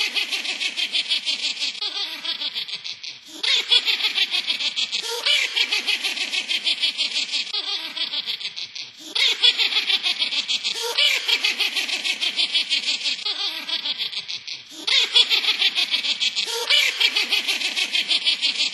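An electronic witch's cackling laugh, high-pitched and rapid, from an animated Halloween witch figure. The same recorded laugh loops over and over, restarting about every six seconds after a brief dip.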